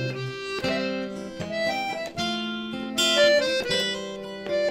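Instrumental music without singing: the closing bars of a waltz, a melody of held notes moving step by step over a chord accompaniment.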